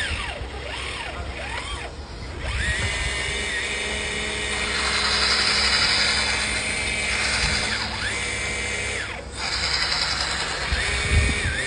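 Hydraulic pump of a radio-controlled model excavator whining as the hydraulics are worked. Its pitch rises to a steady high tone and drops back again three or four times, with a hissing stretch in the middle.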